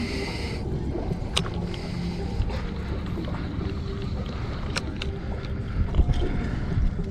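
Wind buffeting the microphone over water moving against a small boat's hull, with a few sharp clicks and a knock near the end.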